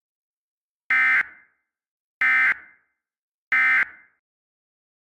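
Emergency Alert System end-of-message data bursts: three identical short electronic bursts about 1.3 seconds apart, each trailing off with a brief echo. They signal the end of the alert message.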